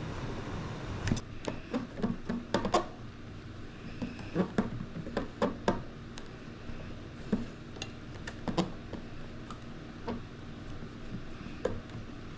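Irregular sharp clicks and light knocks of tools and wood being handled on a workbench, over a faint steady hum.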